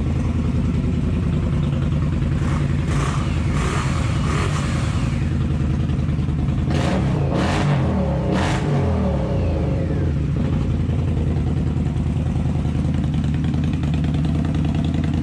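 Indian Scout V-twin motorcycle engine idling through aftermarket slip-on mufflers. The throttle is blipped a few times, revving up and dropping back, about a third of the way in and again around the middle.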